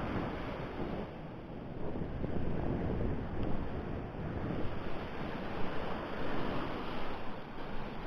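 Wind buffeting the microphone: an unpitched rushing noise, heaviest in the low end, that swells and drops in gusts.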